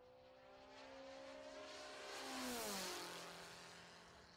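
Intro sound effect of an engine passing by. A rising whine swells with a rushing noise to its peak about two and a half seconds in, then drops sharply in pitch as it passes and settles to a lower steady hum.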